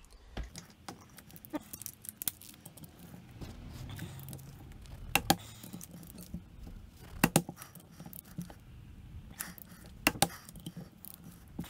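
A torque wrench doing the final tightening of the connecting-rod big-end cap bolts on a Ducati 916 crankshaft to 80 N·m. It gives a few sharp metallic clicks, mostly in pairs, about five, seven and ten seconds in, over quiet rustling of the parts being handled.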